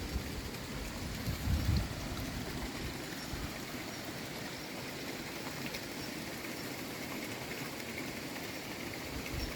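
Steady rushing noise of a mountain valley stream, with a brief low rumble about one and a half seconds in.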